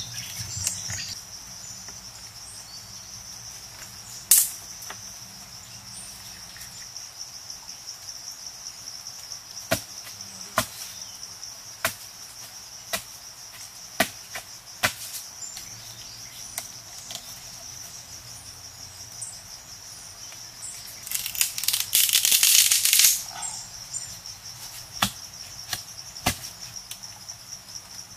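Steady high-pitched drone of forest insects, with scattered sharp knocks of wooden stakes and poles being set and worked by hand, and a rustling scrape lasting about two seconds about three-quarters of the way through.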